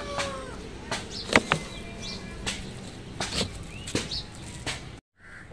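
Irregular knocks, clicks and rustles from a phone being handled with a finger over it, with birds chirping faintly in the background. The sound cuts out briefly near the end.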